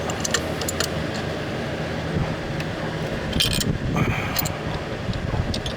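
Metal hand tools clicking and clinking as a threaded installer tool is turned by wrench, a few sharp clicks and short clusters of clinks, over a steady low hum.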